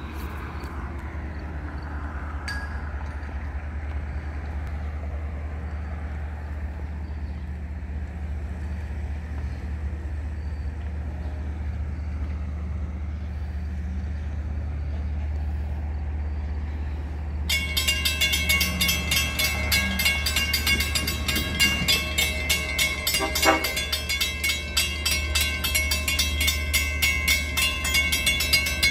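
Railroad grade-crossing warning bells start ringing rapidly about two-thirds of the way in, signalling an approaching train, over a steady low rumble. Midway through the ringing there is a short horn sound.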